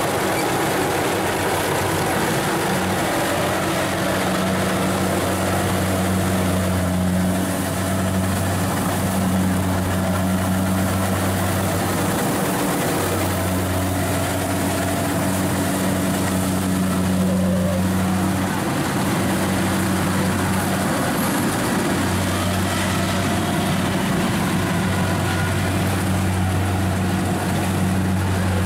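Kubota DC-70 rice combine harvester running steadily as it cuts and threshes rice: a constant low diesel engine drone.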